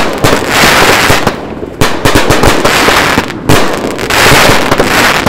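Six Moons 12-shot aerial cakes from the 72-shot finale set firing together: a rapid barrage of overlapping shots and loud bursts, with two brief lulls, about a second and a half in and near three and a half seconds.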